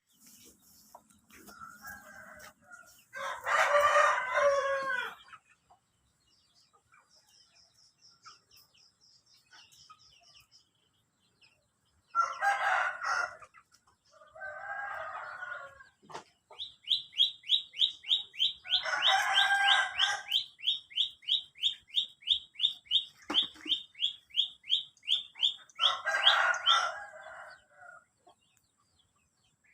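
A rooster crowing several times, the loudest crow about four seconds in. From the middle onward a small bird repeats a high, quick chirp about four times a second.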